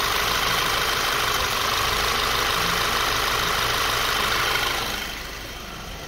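2012 Volkswagen Tiguan's 2.0 TSI petrol four-cylinder idling steadily under an open bonnet, growing quieter about five seconds in. The engine has a weak ignition coil that misfires only under heavy load, not at idle.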